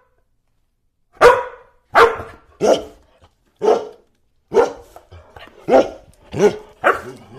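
A dog barking: about nine short, sharp barks in an irregular series, roughly half a second to a second apart.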